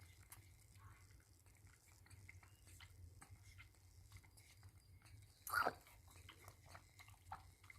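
A baby monkey's faint mouth sounds and small scattered clicks, with one brief louder sound a little past halfway, over a low hum.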